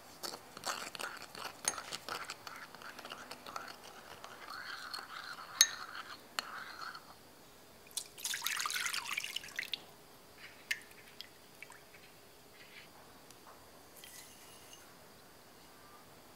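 A metal teaspoon stirs instant yeast and sugar into water in a ceramic ramekin, scraping and clinking against the dish, with one sharp clink about five and a half seconds in. Then milk is poured into a glass bowl for about two seconds, followed by a few light clicks.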